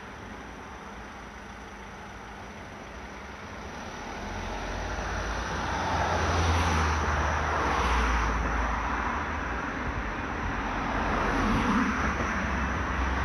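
Road traffic: passing vehicles' engine rumble and tyre noise, quieter at first, then swelling from about four seconds in and rising and falling twice.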